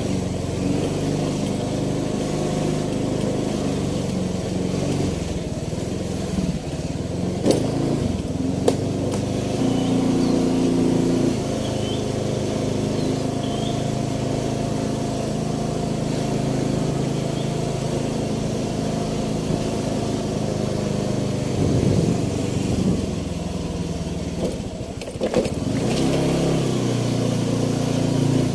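Small motorcycle engine running steadily as it is ridden, its pitch shifting a little with speed, with a couple of sharp clicks or knocks about seven and nine seconds in.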